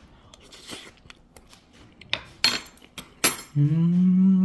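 A metal spoon clinking against dishes and a wooden cutting board, a few light clicks and then two sharper clinks under a second apart. Near the end comes a man's long, steady hummed "mmm" while eating.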